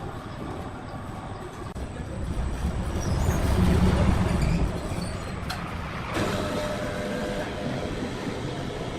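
Heavy sawmill machinery running with a rumbling, clattering noise that swells and grows loudest from about three to four and a half seconds in, then settles back to a steady run.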